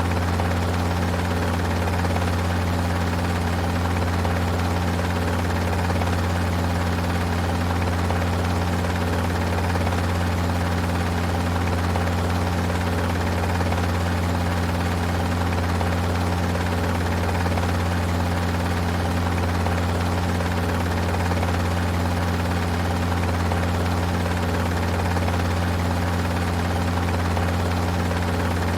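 Helicopter heard from inside its cabin: a steady, unchanging deep drone of engine and rotor with a constant hum over a wash of noise.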